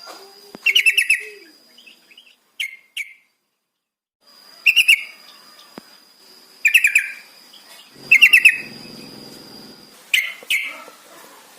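Trucukan (yellow-vented bulbul) singing: about six short phrases of quick notes, a second or two apart, with a brief pause in the middle. A thin steady high tone runs behind the middle phrases.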